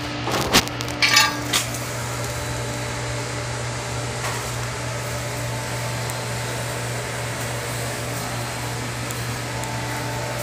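An electric motor running steadily with a constant low hum, with a few knocks and clatters in the first second and a half.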